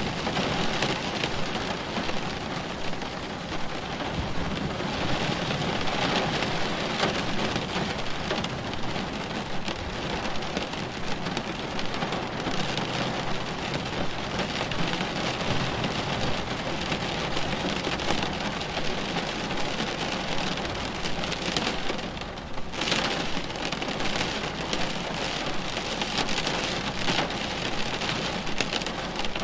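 Thunderstorm: steady heavy rain pattering on surfaces, with a low rumble of thunder beneath.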